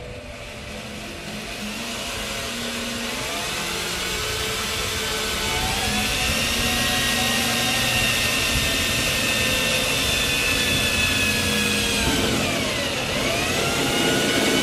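Cordless drill running a step bit through the Impala's steel body panel to open up an antenna hole: a steady motor whine over a rough cutting grind. It builds over the first few seconds, then holds steady. About twelve seconds in the pitch sags as the bit bites and loads the motor, then climbs back.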